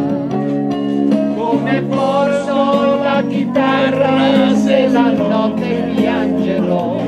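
An electronic keyboard playing an Italian pop song, with a man and a woman singing along.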